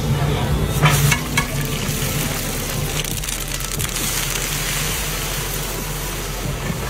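Hot oil sizzling and frying in a large aluminium cooking pot as a ladle stirs it, with a few sharp knocks about a second in. Sliced onions are tipped into the oil partway through and keep it frying.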